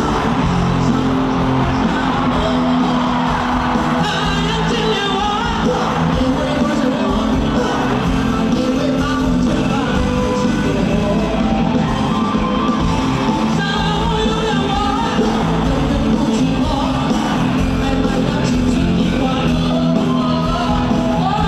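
Live band playing a rock-pop song with singing over it, loud and steady throughout.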